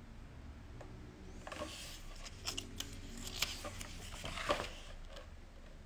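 Pages of a large photobook being turned by hand: paper rustling from about a second and a half in, with a few sharp flicks of the page, the loudest near the end.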